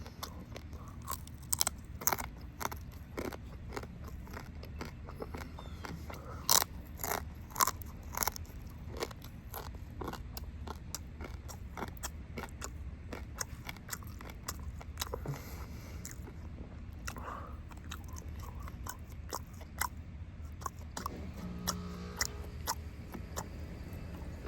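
Close-miked eating: a person biting and chewing rotisserie chicken and yuca chips, with irregular crisp crunches throughout, the loudest a little over a quarter of the way in, over a low steady hum.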